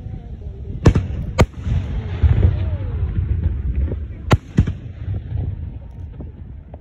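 Fireworks bursting: four sharp bangs in two close pairs, one pair about a second in and the other past four seconds, over a low rumble.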